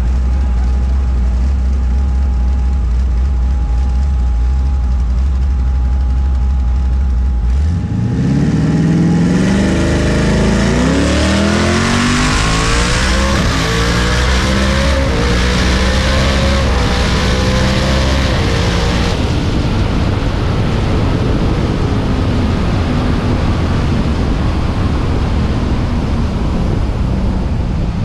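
Twin-turbo Ford Racing Illuminator 5.0 V8 in a 2019 Mustang making a drag-strip pass. It holds a steady low drone at the line, launches about 7 seconds in, and pulls hard up through several gears, its pitch climbing and dropping at each upshift. About 19 seconds in it lifts off and coasts down.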